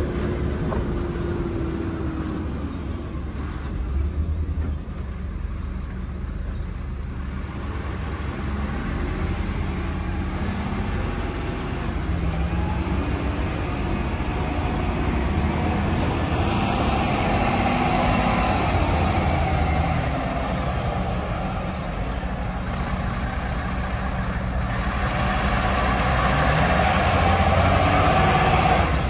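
Volvo A40D articulated dump truck's six-cylinder diesel engine running as the truck drives and turns on dirt, swelling louder twice, about two-thirds in and again near the end, as it pulls harder.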